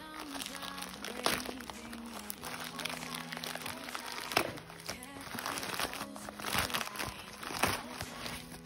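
Plastic courier mailer bag crinkling and crackling as it is handled and torn open by hand, with a few sharper crackles, over background music with held notes.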